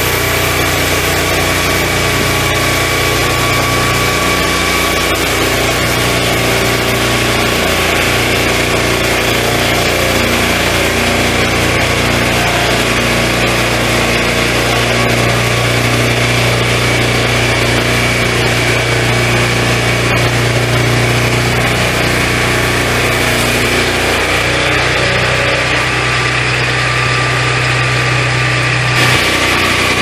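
Swingblade sawmill's petrol engine running steadily while its circular blade saws along the timber, with a steady high-pitched tone over the engine.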